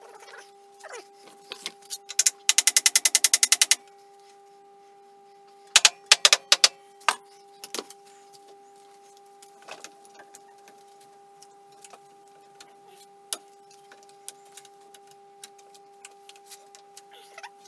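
Metal bar clamps being handled and set on a timber glue-up, clanking and clicking. About two seconds in there is a quick rattle of clicks lasting under two seconds, then a few heavier knocks a couple of seconds later and lighter taps after that, over a faint steady hum.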